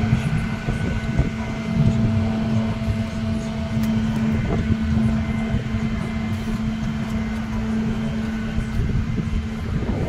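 A vehicle engine idling steadily, with a constant hum over a low rumble.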